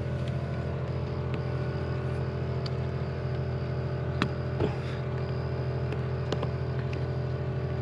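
A steady low engine hum, like a vehicle idling, with a few light clicks and taps as a backup camera is pushed into a plastic shark-fin housing.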